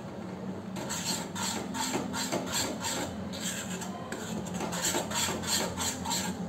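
A spoon scraping and stirring a dry, crumbly mix of milk powder and seed powder in a kadhai, in repeated rasping strokes several times a second, while the powder is being mixed into sugar syrup.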